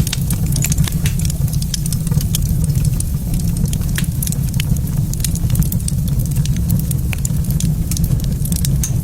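Wood fire in a fireplace crackling and popping in irregular sharp snaps, over a steady low rumble.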